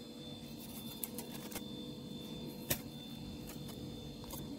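Kitchen knife cutting the core and seeds out of a hand-held apple: a few faint sharp clicks and crunches, the clearest one about two and a half seconds in, over a faint steady hum.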